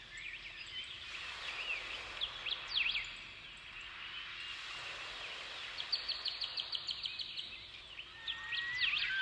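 Small birds chirping and calling over a faint steady outdoor hiss, with many short rising and falling calls and a fast, high trill about six seconds in.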